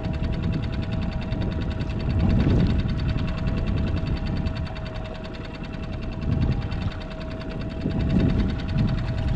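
Small boat motor running steadily with a constant hum, over low rumbling that swells and fades every few seconds.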